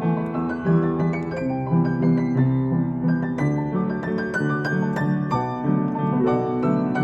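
Piano played four-hands: a slow, gentle melody of single struck notes over sustained chords, without a break.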